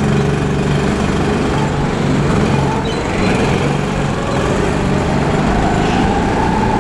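Go-kart engines running steadily as the kart drives round an indoor track behind other karts; near the end the engine pitch rises gently as it speeds up.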